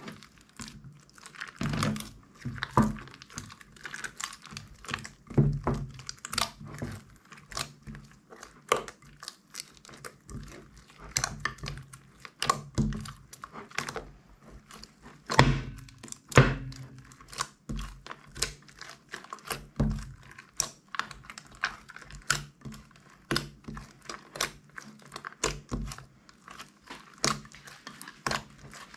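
Hands squeezing and kneading a large mass of slime in a glass dish: a constant run of irregular wet squelches and sharp clicking pops, with a few louder pops about halfway through.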